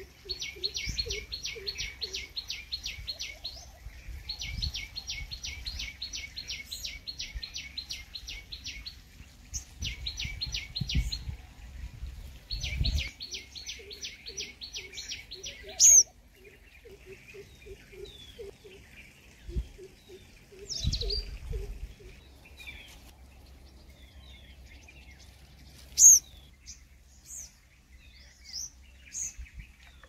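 Purple sunbird singing: rapid runs of repeated high notes in four bouts over the first half, then scattered chirps with two loud, sharp calls.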